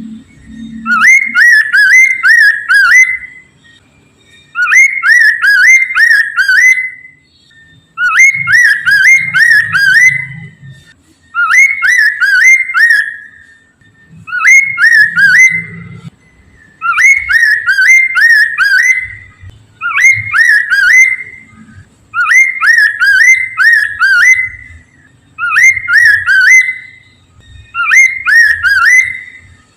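A poksay mandarin, a laughingthrush, singing in full voice: a phrase of four or five quick, ringing whistled notes lasting about two seconds, repeated nine times with short pauses between.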